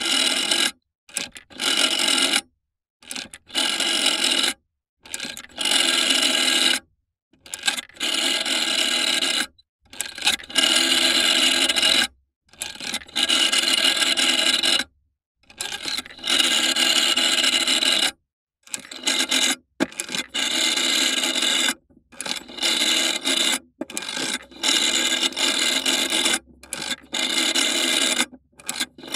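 Vintage telephone bell ringing in a series of short rings, each about one to two seconds long, with silent gaps between them.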